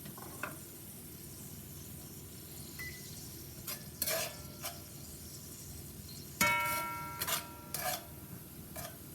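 A spoon stirring and tapping in a metal cooking pot, with scattered knocks and one ringing clang about six and a half seconds in, over a faint sizzle of sofrito, sazón and a chicken bouillon cube cooking in hot oil.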